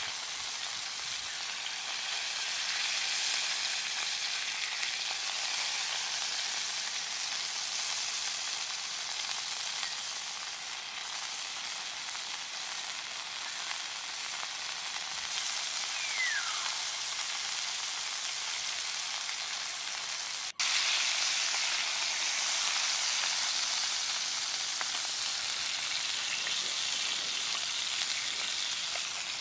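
Beef steak sizzling in oil in a nonstick frying pan on a portable gas stove, a steady frying hiss. It drops out for an instant about two-thirds of the way through and comes back louder.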